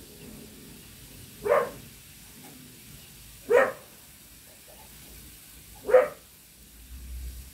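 A dog barking in single barks about two seconds apart, three in all.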